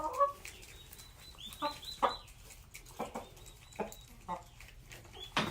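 Chicken clucking: a scattered series of short clucks.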